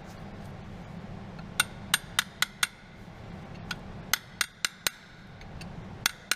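Hammer tapping a new drive shaft oil seal into a Toyota Avensis gearbox housing: two runs of about five quick, sharp metallic taps, then a single tap near the end.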